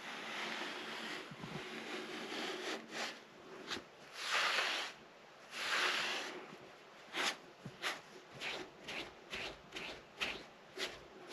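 Sponge rubbing stove black onto the surface of a cast iron Jötul 602 wood stove: a stretch of scrubbing, two long strokes, then a run of short quick strokes.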